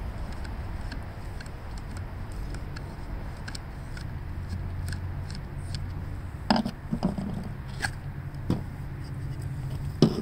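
A few light clicks and scrapes of a small screw and the magneto's cover being handled, starting about six and a half seconds in, over a steady low rumble.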